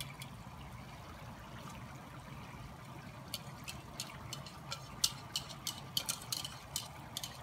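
BBQ sauce and soda mixture pouring from a bowl into a cast-iron Dutch oven, faint, with a utensil scraping and ticking against the bowl in the second half.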